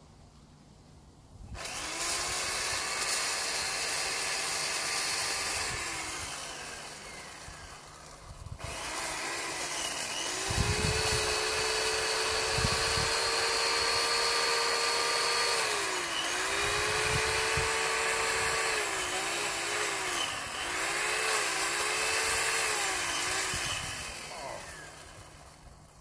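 Chainsaw cutting into a tree trunk. It runs for about four seconds and winds down to a stop, then starts again and runs for about fifteen seconds, its pitch dipping several times as it bogs in the cut, before winding down near the end.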